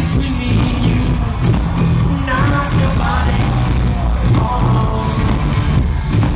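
Live pop music from a full band played loud over an arena sound system, heavy in bass, with a voice singing a melody partway through.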